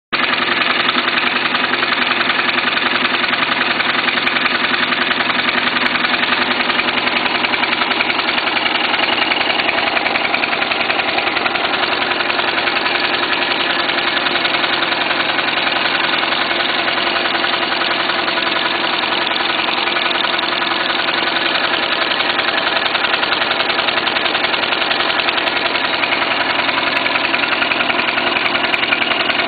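Internal-combustion Ericsson-cycle (piston Brayton-cycle) engine running steadily, a rapid, even beat of its strokes that holds constant throughout.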